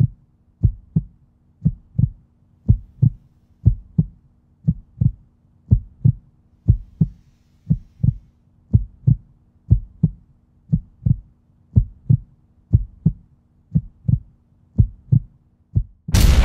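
Heartbeat sound effect: pairs of low thumps, about one pair a second, over a faint steady hum. Loud punk rock music cuts in near the end.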